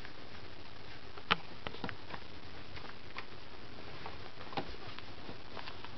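Young puppies suckling at their mother, making scattered small clicks and smacks, the loudest about a second in.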